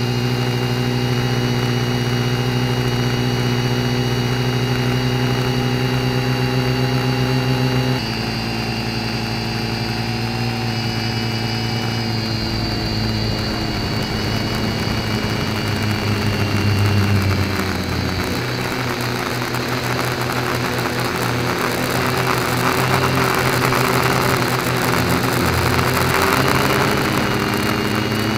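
Multirotor's electric motors and propellers, recorded from the craft itself, whining steadily on several tones. The pitch steps down about eight seconds in and changes again with the throttle a few seconds later, and a rougher air rush builds in the second half.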